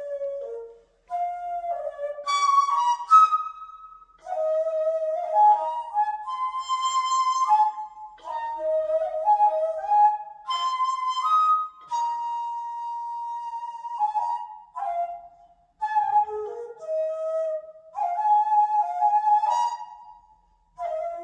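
Daegeum, the Korean transverse bamboo flute, playing a slow melody in phrases of held and sliding notes. It breaks off briefly between phrases, about 1, 4, 16 and 20 seconds in.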